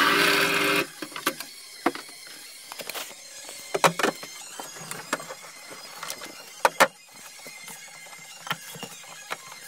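Benchtop drill press boring into a wooden board, a steady loud cutting sound that stops just under a second in. Scattered clicks and knocks follow, with the loudest pairs about four and seven seconds in.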